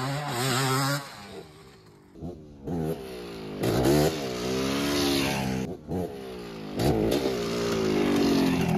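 1986 Honda ATC250R's two-stroke single-cylinder engine revving up and dropping off again several times as the three-wheeler is ridden over dirt jumps, its pitch climbing and falling. The engine has a carburettor bog, hesitating at the front of the jumps.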